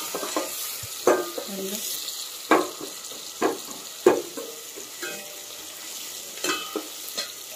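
Sliced onions and whole spices sizzling as they sauté in a stainless steel pot. A perforated metal ladle stirs them, scraping and knocking against the pot several times.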